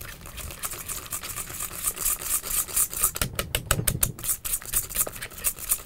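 Wire whisk beating softened butter and thick strained Greek yogurt in a stainless steel bowl: quick, even scraping strokes against the metal, about four or five a second.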